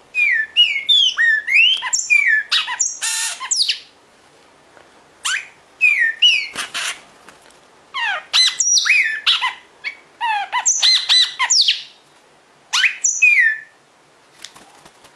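Agitated red-crested cardinal calling in several loud bursts of rapid, sharp chirps that slide steeply in pitch, with short pauses between the bursts.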